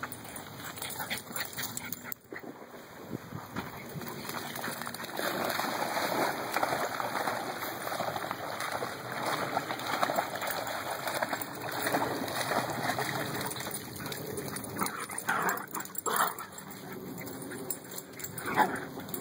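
Dogs splashing as they swim through pond water, then near the end a few short dog yips and whines as the dogs play.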